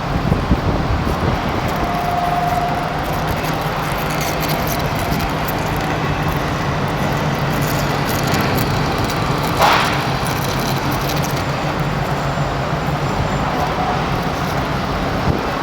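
Heavy workshop machinery running steadily with a low hum, with a short loud hiss just under ten seconds in.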